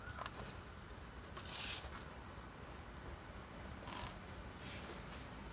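Light handling sounds on a coffee bench: a few faint taps, a short rustle about one and a half seconds in, and a single sharp metallic clink about four seconds in.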